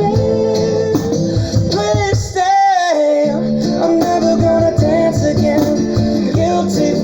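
Recorded pop ballad playing through its instrumental section, with a cajón beaten along in a steady rhythm of low thumps under a held, wavering melody line. The cajón drops out for about half a second near the middle.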